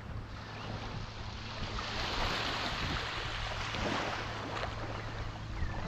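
Small ocean waves washing onto the beach with wind on the microphone, the wash swelling about two seconds in. A steady low hum runs underneath.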